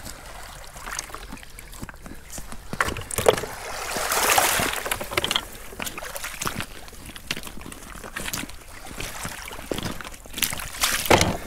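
Shallow seawater sloshing and trickling among rocks, with scattered clicks and knocks, and a louder rushing hiss about four seconds in.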